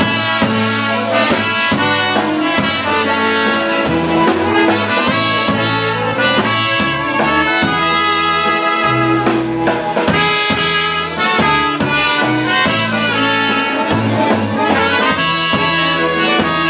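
Two trumpets playing a lively melody together, with a band's bass line and drums underneath.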